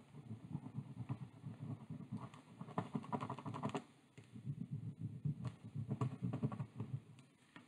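Fingers pressing and rubbing over the glued wooden craft sticks of a model on a tabletop: a fast, irregular tapping rustle, with sharper clicking about three seconds in and again around six seconds.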